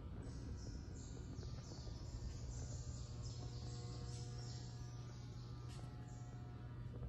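Faint background ambience: a low steady hum, with patches of high-pitched hiss coming and going.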